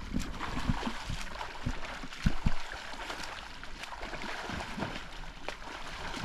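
Stream water running and gurgling, with a few low thumps, the loudest about two seconds in.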